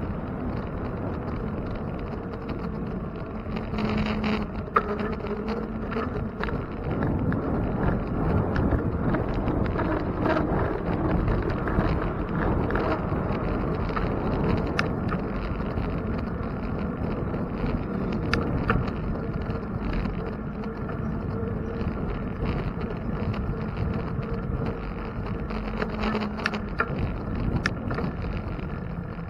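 Steady wind and road noise from a bicycle ride through city traffic, with scattered short clicks.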